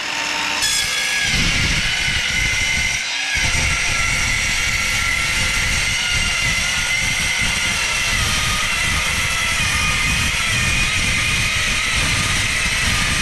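Electric power tool cutting metal stock, a steady motor whine over the rough grind of the cut, which eases off briefly about three seconds in.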